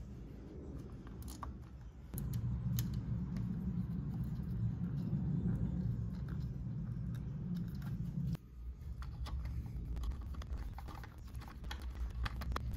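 Light metallic clicks and ticks of a small nut, lock washer and wire terminal being handled and threaded onto a starter solenoid terminal stud, by hand and then with a small open-end wrench. A low background rumble comes in about two seconds in and cuts off abruptly around eight seconds.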